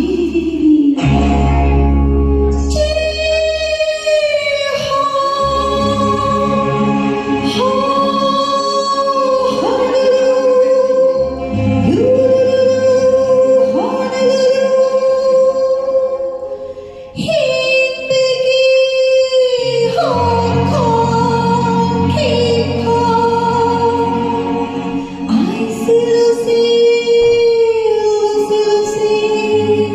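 A woman singing a Hindi film song with long, sliding held notes over an instrumental backing with a bass line.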